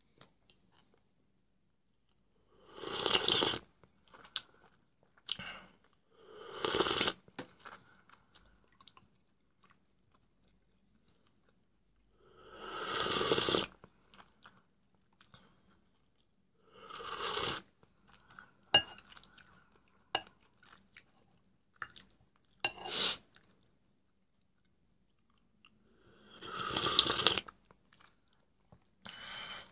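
Close-up eating sounds of a man having soup from a spoon with bread: about seven loud slurps several seconds apart, each swelling and cutting off, with quiet chewing and small clicks in between.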